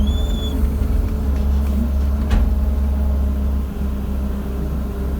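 JCB JS160 excavator's diesel engine running with a steady low drone. A short high whistle comes at the very start, and a single sharp knock about two seconds in.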